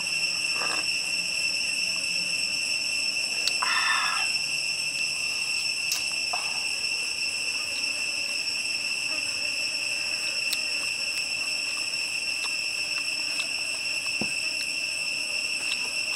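Insects buzzing in one steady, high-pitched unbroken drone, with a few brief faint sounds on top.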